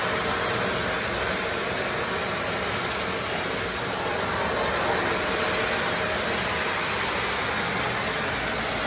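Kärcher wet-and-dry vacuum cleaner running steadily in water mode, its floor nozzle sucking up standing water from a tiled floor.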